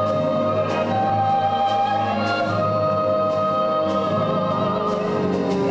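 Operatic soprano singing long held notes over a symphony orchestra and choir, with light percussion strokes at a regular pulse.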